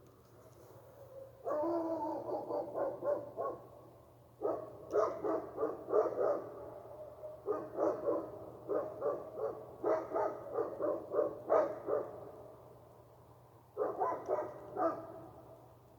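Dogs barking in quick repeated barks, in four bouts with short pauses between them, the longest near the middle.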